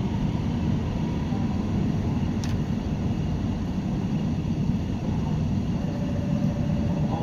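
JR West 201 series electric train running, heard from inside the car: a steady low rumble of wheels and traction equipment on the track, with one brief tick about two and a half seconds in.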